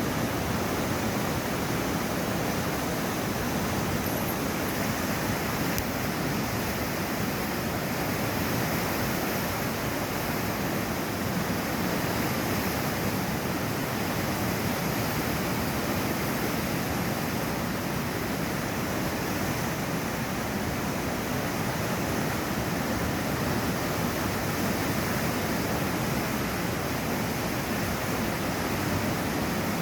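River water pouring through a weir: a steady, unbroken rush of falling water.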